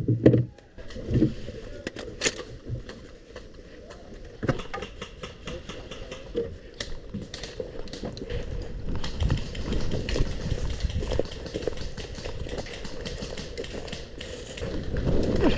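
An airsoft player moving through the field: footsteps and rustling of gear, with sharp clicks scattered throughout. The rustling grows busier about halfway through.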